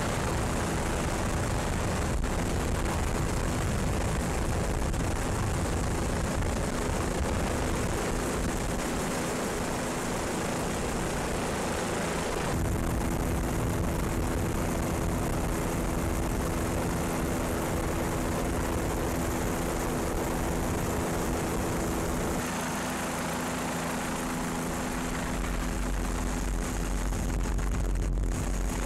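Steady drone of an aircraft engine with a constant hum, heard from aboard the aircraft. The sound shifts abruptly about 12 seconds in and again about 22 seconds in.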